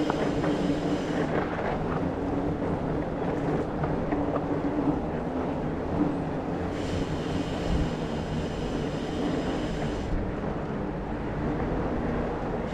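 Mountain bike rolling along a dirt trail: a steady rumble of tyres with a low hum and wind on the microphone. A higher-pitched buzz comes in about seven seconds in and stops about three seconds later.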